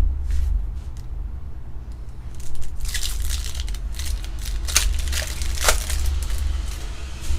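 Foil trading-card pack wrapper being torn open and crinkled, a run of irregular crackling starting about two and a half seconds in, over a steady low hum.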